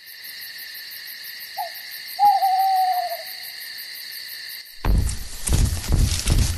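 Night ambience of chirping crickets, with an owl hooting twice: a short hoot, then a longer hoot that falls slightly. Near the end the crickets cut off suddenly and heavy, low, rhythmic thuds start, about two to three a second.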